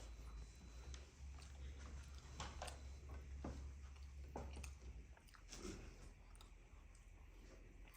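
A person chewing food, faint, with a handful of short wet mouth clicks and smacks scattered through. A low steady hum underneath stops about five seconds in.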